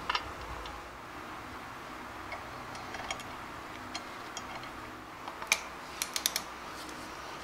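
Scattered light metallic clicks and ticks as small bolts are set into a two-piece brake rotor's aluminum hat. Near the end comes a sharper click, then a quick run of four clicks from a ratcheting torque wrench.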